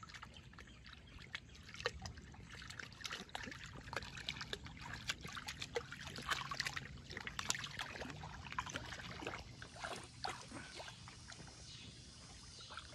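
Small, uneven splashes and sloshing of shallow creek water as a schipperke wades through it.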